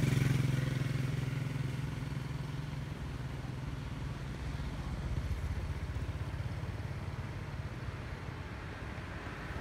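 Low, steady hum of a motor vehicle engine, loudest at the start and slowly fading.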